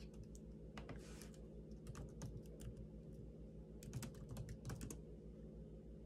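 Typing on a computer keyboard: irregular runs of soft key clicks over a faint steady hum.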